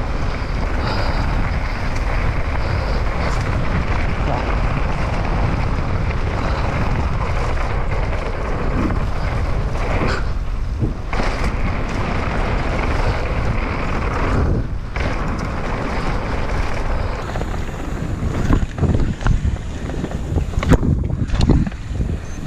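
Wind rushing over the microphone, mixed with the rumble of a mountain bike's knobby tyres rolling fast down a dirt trail. The rush dips briefly twice midway, and near the end it turns uneven with scattered knocks as the bike runs out onto bumpy grass.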